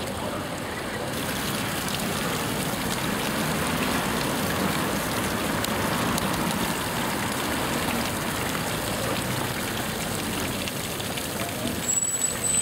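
Water splashing steadily from a tiered street fountain, mixed with road traffic passing close by. Near the end it cuts abruptly to different street noise.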